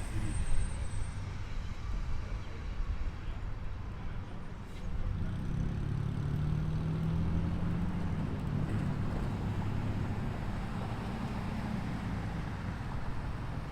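Dump truck engine running at a steady low rumble while manoeuvring to dump a load of fill dirt. Its engine note grows stronger about five seconds in and holds steady.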